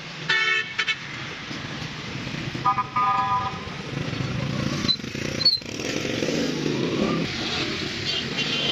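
Passing road traffic: two short horn honks in the first few seconds, then a motorcycle or other vehicle going by, swelling and fading.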